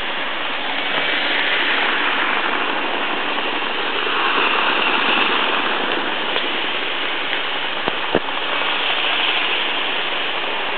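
Märklin model trains running fast on metal track: a steady rushing rattle of wheels and small electric motors, with two sharp clicks about eight seconds in.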